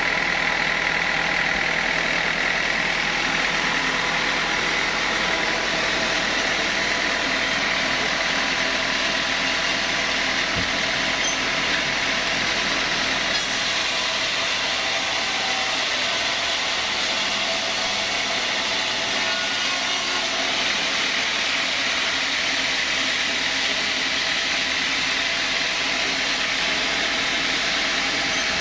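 Sawmill saw machinery running steadily: a loud, even mechanical noise with steady tones running through it and no breaks.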